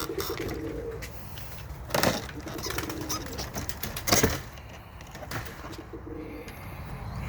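Domestic pigeons cooing, several low hums one after another, with two short louder noises about two and four seconds in.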